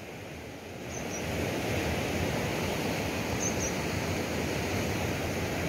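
Steady rush of fast-flowing canal water, a little louder from about a second in, with a faint high double chirp twice.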